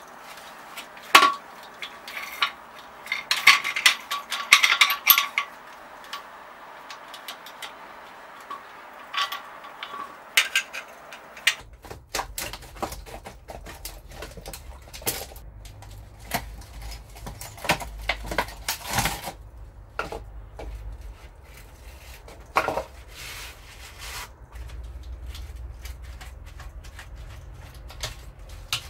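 Hard objects being handled, with sharp metallic clinks and knocks, some ringing briefly, most of them in the first few seconds. A little before halfway a steady low hum sets in under the continuing knocks.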